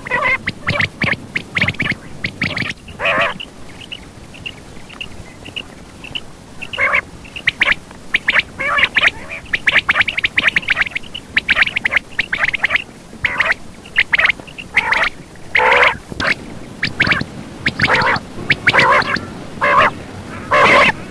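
Quail calling in quick, irregular bursts of short raspy calls, with a run of short high peeps a few seconds in: a quail call recording played as a lure for hunting.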